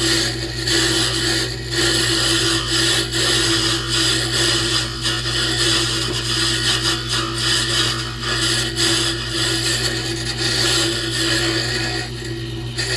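Wood lathe running with a steady motor hum while a hand tool scrapes the spinning pen blanks, with a scraping noise that rises and falls as the tool works, and brief dips near the end.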